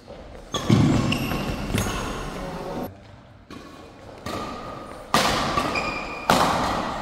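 A badminton rally: racket strikes on the shuttlecock come about a second apart, each ringing on in the hall's echo, with shoes squeaking on the court in between.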